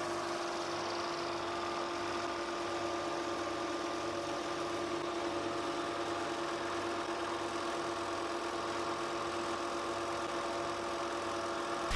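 A machine's motor running steadily with an even, unchanging hum.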